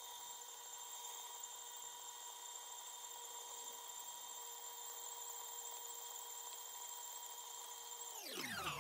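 KitchenAid Professional 600 stand mixer running steadily with its flat paddle, beating hot choux dough to cool it. It gives a steady motor whine that slows near the end, dropping in pitch.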